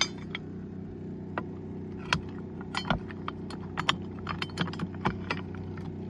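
RV entry door latch and handle being worked, a string of sharp, irregular metallic clicks and rattles over a steady low hum. The latch is working again after its broken spring was replaced with a piece cut from a bigger spring.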